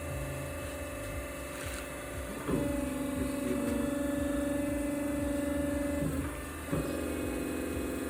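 Electric motor hum from a homemade metal-cutting band saw machine with its pump switched on. A louder, steady hum comes in about two and a half seconds in, cuts out briefly around six seconds, and starts again.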